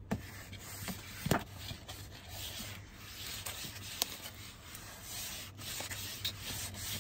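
Paper towel rubbed over a cutting board, wiping it with a steady scuffing, with a couple of light knocks in the first second and a half.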